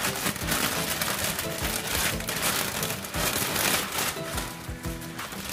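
Broth bubbling and spitting in a wok of simmering rice noodles, pork and vegetables, a dense crackling patter like rain, under soft background music.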